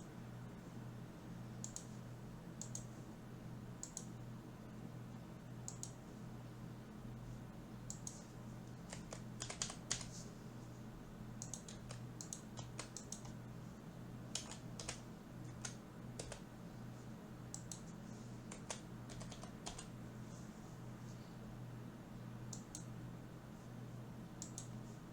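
Computer keyboard keys clicking in scattered, irregular taps, sometimes in short runs, over a faint steady low hum.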